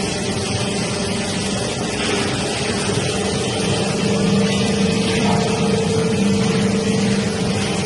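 Four-roll CNC plate rolling machine running with a steady mechanical hum and whine, a little louder about halfway through.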